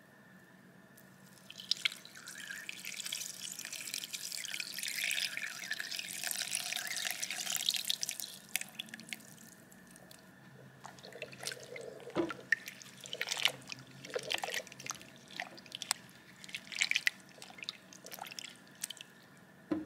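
Brewed black tea poured from a glass jug through a metal mesh strainer into a glass bowl of orange slices: a steady splashing pour for about six seconds that tails off into drips. Later, a spatula stirring the tea and orange slices gives scattered splashes and taps against the glass.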